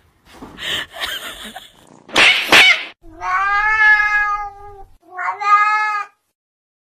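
A cat making harsh, noisy sounds, then two long, drawn-out meows, the first about two seconds and the second about one second.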